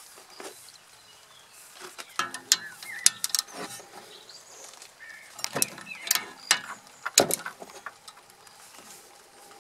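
Steel spanner working on the rear brake caliper bolts, metal clicking and clinking against the caliper. The sharp clicks come in two clusters, about two seconds in and again around six to seven seconds in.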